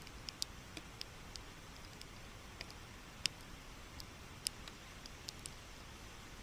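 Raindrops striking the camera close by: about a dozen sharp, irregular ticks, one louder about three seconds in, over a faint steady rush of rain-swollen runoff pouring over a concrete spillway.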